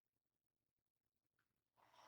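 Near silence in the pause between two snores; the next snore begins faintly at the very end.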